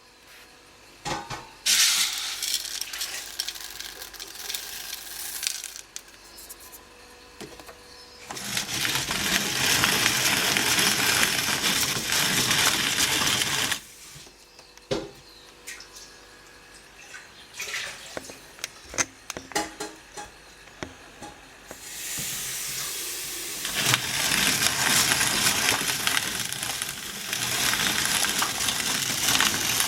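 Hand-cranked Family Grain Mill grinding grain, heard as three long spells of gritty rustling with clicks and rattles in the pauses between.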